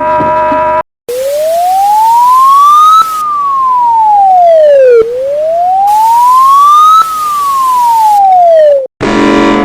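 Electronic emergency-alert siren tone: a single pure wailing tone that rises slowly for about two seconds and falls for two, twice over, above a steady hiss. It starts about a second in and cuts off near the end.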